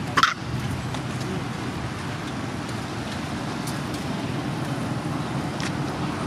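A single short, loud animal call right at the start, over a steady low outdoor rumble that runs throughout, with a couple of faint clicks later on.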